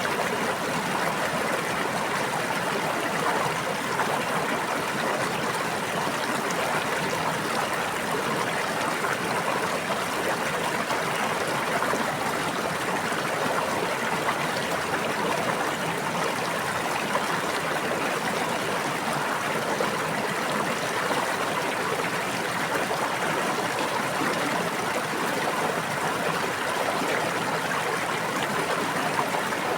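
A brook babbling steadily: continuous running water with an even rushing sound and no swells or pauses.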